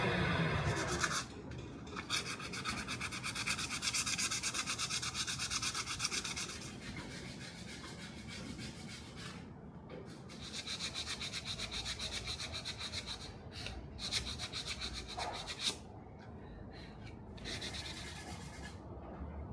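Hand rubbing or sanding on the knife in three spells of quick, even scraping strokes, with quieter pauses and a few light clicks between them. In the first second a machine's whine winds down and stops.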